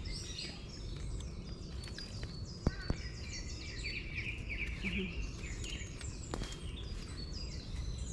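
Birds chirping steadily in a chorus of short, quick, falling notes, over a low rumble of wind and handling noise, with two sharp clicks close together a little under three seconds in.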